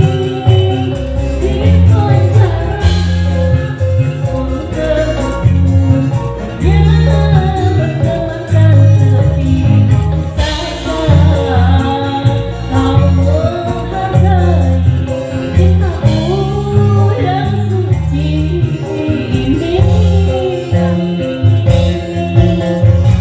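Live band playing a song: a singer's voice over an electronic keyboard and electric guitar, with a strong bass line.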